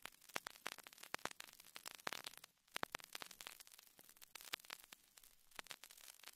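Faint crackling static: dense, irregular clicks and pops over a low hiss, dropping out briefly about two and a half seconds in.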